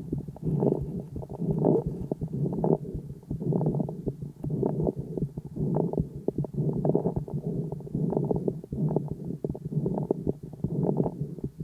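A sick calf's lung sounds, heard through a homemade stethoscope microphone on the chest on the third day of illness. Breath sounds swell and fade about once a second, with many short clicks throughout.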